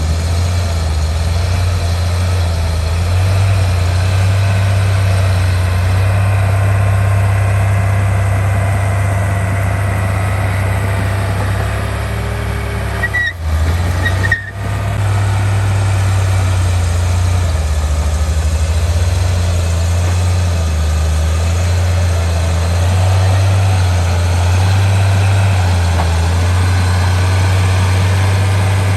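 Heavy diesel engine of earthmoving machinery, a bulldozer or dump truck, running steadily with a loud low drone that swells and eases slightly. Two brief breaks cut the sound about halfway through.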